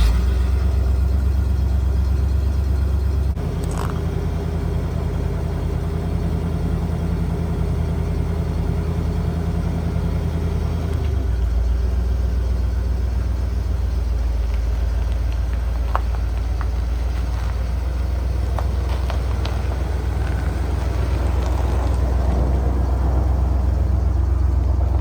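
1991 Ford F150 pickup's engine running with a steady low drone. The drone's pitch shifts a few seconds in and again about halfway through.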